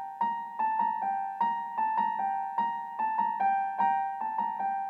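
Background music: a piano-like keyboard playing a repeated pattern of single struck notes at an even pace, about two or three a second, each note ringing and fading before the next.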